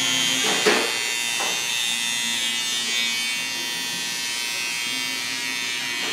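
Cordless electric hair trimmer buzzing steadily as it cuts hair at the back of a man's head and neckline.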